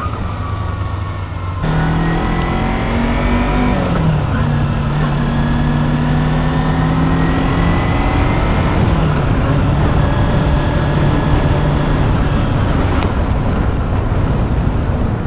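Kawasaki Ninja 250R's parallel-twin engine under way: it runs low for the first second and a half, then revs up, drops sharply about four seconds in, and carries on at a steady, slowly rising note. Wind noise rushes over the helmet camera's microphone.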